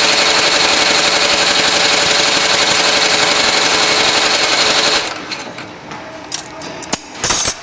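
Goodyear welt inseam chain-stitch machine running steadily as its awl and needle sew the welt onto a shoe. It stops abruptly about five seconds in, and a few scattered clicks and a short loud burst follow near the end.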